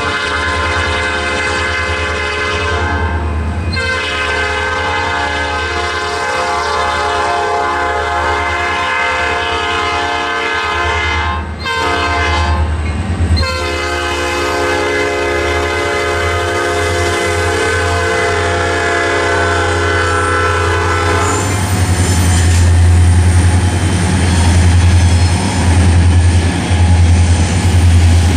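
An EMD SD40-2 diesel locomotive sounds its air horn in the standard grade-crossing pattern: two long blasts, a short one about 12 seconds in, and a final long blast that ends about 21 seconds in. The crossing's electronic bells ring throughout. Then the locomotive's two-stroke diesel engine and its wheels rumble louder as it rolls across the crossing.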